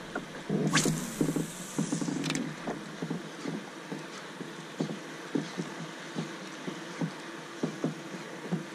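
Small waves lapping and slapping against a kayak hull in an uneven string of short splashes, with one louder splash about a second in.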